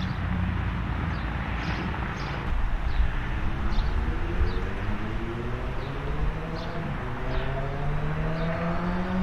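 Kawasaki Z900RS Cafe's inline-four through a Hindle full exhaust system, its engine note climbing slowly and steadily in pitch through the second half.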